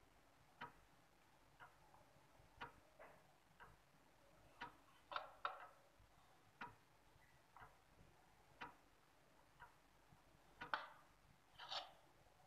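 Faint ticking about once a second, like a clock, with a few soft extra taps and scrapes of a spoon spreading cream on a sponge cake layer, a little more of them near the end.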